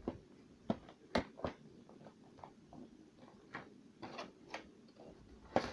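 Toy figure packaging being handled and opened: a series of irregular clicks and taps.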